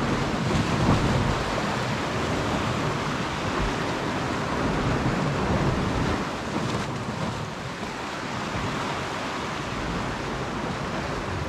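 Sea waves washing and breaking against shore rocks, a steady surging rush, with wind rumbling on the microphone.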